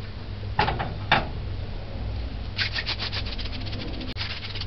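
Palms rubbing briskly together, rolling dough into thin strips: two short rubs near the start, then a quick run of rapid back-and-forth strokes from about halfway through.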